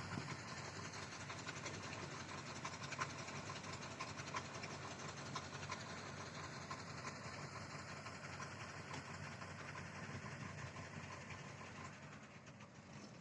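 An engine running steadily with a low hum and many small ticks, fading slightly near the end.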